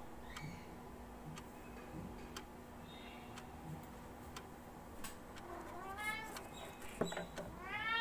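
Male cockatiel calling: a faint call that rises and falls about six seconds in, then a louder one near the end, with scattered light clicks throughout.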